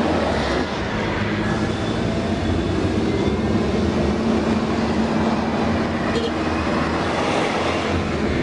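Steady road and wind noise of a car on the move, an even rush over a low hum, with no breaks.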